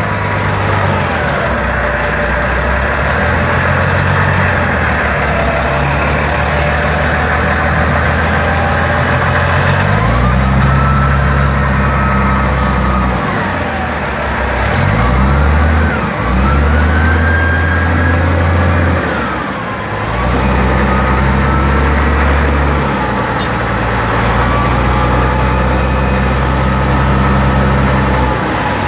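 Caterpillar 966C wheel loader's diesel engine running under way, heard from inside the cab, loud and steady. Its engine speed drops and picks back up a few times around the middle, and a whine rises and falls in pitch along with it.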